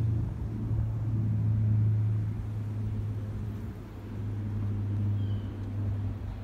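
Diesel engine of a Colas Rail ballast tamper approaching along the line: a steady low drone.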